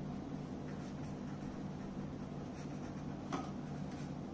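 Pen writing on notebook paper: faint, short scratching strokes as words are written, over a steady low hum.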